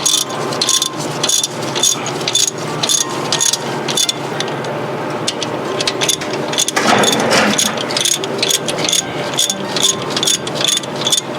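Hand ratchet clicking in quick repeated strokes as cylinder head bolts are run down by hand, with a brief louder clatter about seven seconds in.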